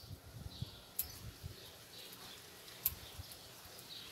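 Small scissors snipping through ficus leaves: three sharp clicks about a second or two apart. Faint birds chirp in the background.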